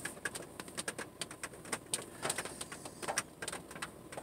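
Faint, irregular light ticks and taps inside a parked car's cabin, over a low hiss.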